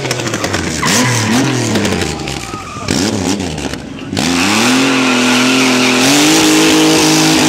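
Large Triumph cruiser motorcycle revved up and down in short blips. About four seconds in, it is held at high revs while the rear tyre spins and squeals in a burnout.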